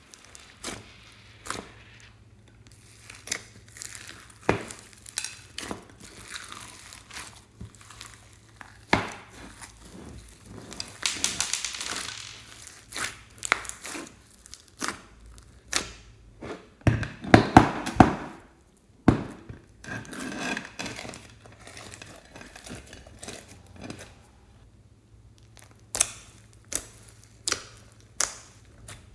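Hands squishing and kneading sticky slime mixed with foam beads: irregular wet pops and crackling clicks, with a dense run of loud pops a little past halfway.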